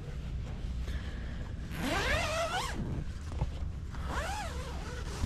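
A zipper pulled in two strokes. The first, about two seconds in, rises in pitch for about a second; the second, a shorter stroke about four seconds in, rises and then falls.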